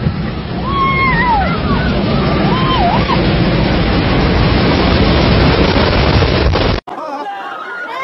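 Rockfall: a cliff face collapsing and rocks crashing down in a loud, continuous rumble that builds over the first seconds, with voices exclaiming in the first three seconds. It cuts off abruptly about seven seconds in, giving way to quieter voices.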